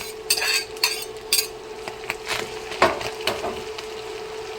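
Spoon scraping and clinking against a frying pan while stirring browning ground chicken with onion and green bell pepper, in a series of short irregular clicks and scrapes, with faint sizzling underneath.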